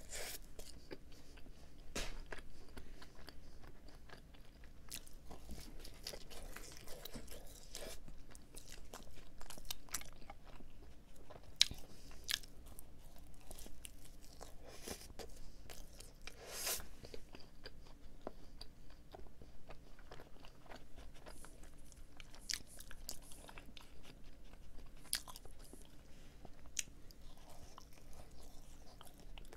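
A person biting into and chewing a Krispy Kreme Original Glazed doughnut, with many small scattered mouth clicks.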